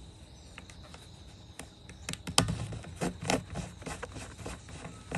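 Gloved hands unscrewing the cap of a plastic fuel jerry can: a run of irregular plastic clicks and knocks that starts about two seconds in.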